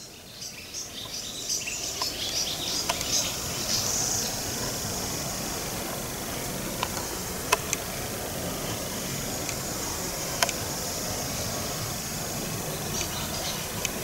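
Steady high chirring of insects, with bird chirps in the first few seconds and a handful of short sharp clicks scattered through.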